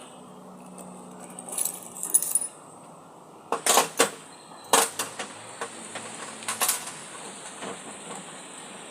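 Metal hardware being handled while a security camera is fitted: a jingling rattle about two seconds in, then a few sharp clacks and knocks through the middle.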